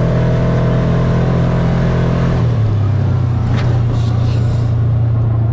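Engine of the vehicle being ridden on a dirt road, running steadily; about two and a half seconds in its note drops a little and the higher overtones fall away.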